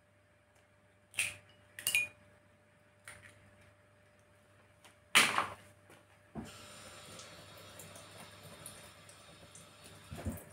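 An egg cracked against the rim of a glass bowl: sharp taps about one and two seconds in, then a louder knock about five seconds in. A steady faint noise follows.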